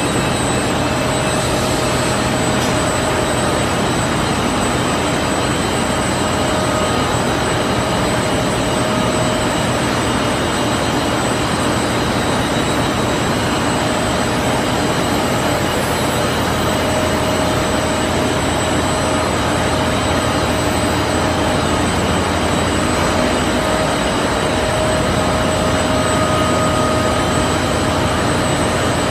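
Open-width continuous washing range for knit fabric running in a textile mill: a steady machinery drone with a few constant whining tones from motors and rollers, unchanging throughout.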